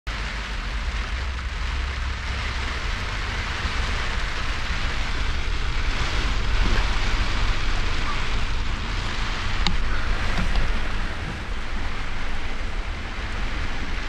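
Heavy rain falling on a truck, heard from inside, over a steady low rumble of wind, swelling louder around the middle.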